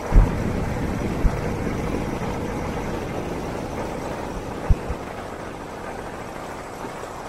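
Steady rush of wind and road noise from riding along a road at speed, with a few short thumps. The rush slowly gets quieter.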